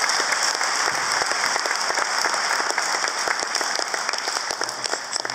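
Audience applauding with dense, steady clapping that begins to thin out near the end.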